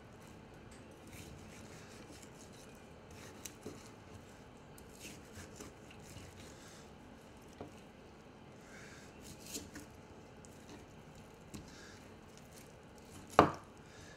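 Large knife cutting pork off the bone on a wooden cutting board: faint slicing, scraping and small clicks, then one sharp knock near the end.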